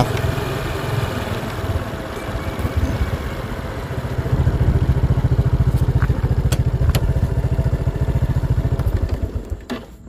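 Motorbike engine running with a rapid low putter. It grows louder about four seconds in and dies away just before the end, as the bike slows and stops.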